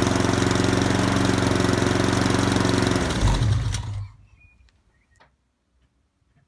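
Honda Civic Type R EP3's K20A2 four-cylinder engine idling steadily after a cold start, heard at the tailpipe. About three seconds in it is switched off and shudders to a stop within a second. Near silence follows, with a few faint clicks.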